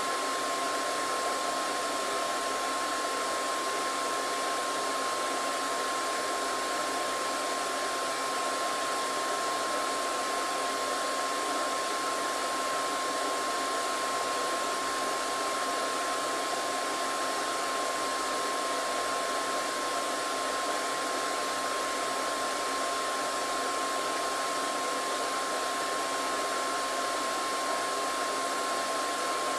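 Hair dryer running steadily: an even rush of blown air with a constant high tone from its motor through it, unchanging throughout.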